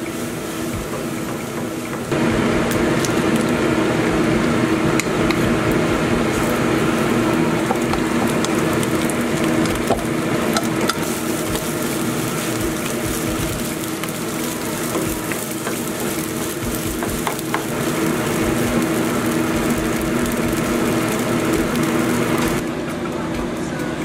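Fried rice ingredients sizzling in a nonstick frying pan, stirred and scraped with a wooden spatula, with light ticks of the spatula against the pan over a steady hum. It gets louder about two seconds in and drops back near the end.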